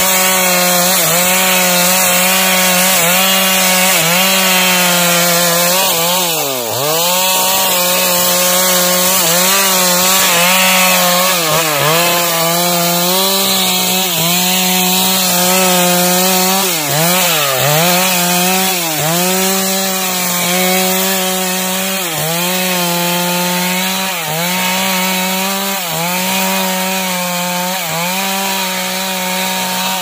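Stihl two-stroke chainsaw running near full throttle while ripping a log lengthwise, the chain cutting along the grain. The engine note dips briefly again and again as the cut loads it, then picks back up.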